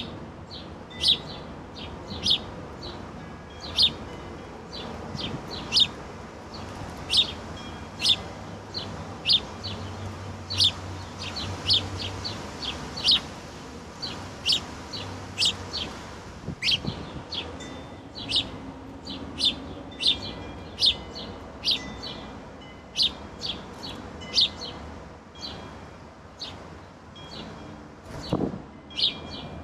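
Wild songbirds calling, with a steady run of short, sharp chip notes, about one or two a second. A dull thump comes near the end.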